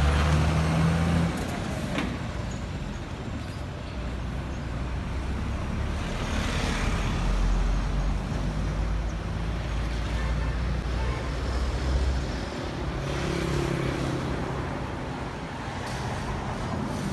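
Diesel engine of a self-loading concrete mixer running steadily, louder for about the first second, with a single sharp click about two seconds in.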